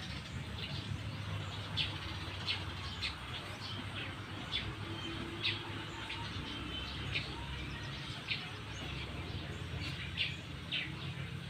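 A small bird chirping repeatedly, short high chirps about once a second at an uneven pace, over a low steady hum.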